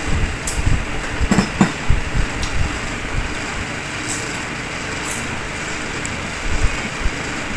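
Chewing and eating sounds with a few soft low knocks, over a steady rushing hiss.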